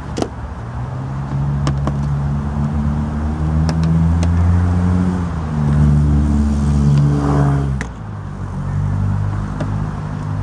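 A motor vehicle engine running, its pitch shifting up and down in steps before easing off about eight seconds in, with a few light clicks of a screwdriver working a plastic panel screw.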